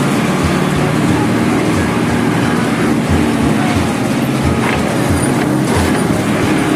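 Motor vehicle engine running steadily under street traffic noise.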